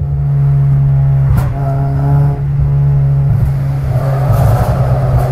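Honda Civic Si's K24 2.4-litre four-cylinder with a PLM downpipe and crackle-map tune, heard from inside the car in a tunnel. The exhaust holds a steady drone with one sharp crackle about a second and a half in, then turns raspier near the end.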